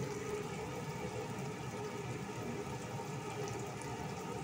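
Chicken pieces cooking in vinegar, soy sauce and oil in a pot on a gas stove: a steady simmering sizzle.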